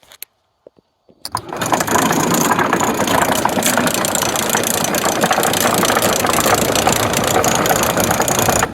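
Sawmill machinery starts up about a second in and runs loudly and steadily with a dense rattling noise, then cuts off suddenly.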